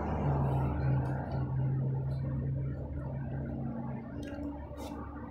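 Steady low machine hum with a few fixed pitches, easing slightly about four seconds in, under close, wet eating noises as meat is picked off grilled chicken by hand. A couple of sharp clicks come near the end.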